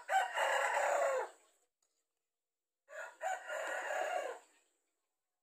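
A rooster crowing twice, each crow about a second and a half long; the second is a little quieter than the first.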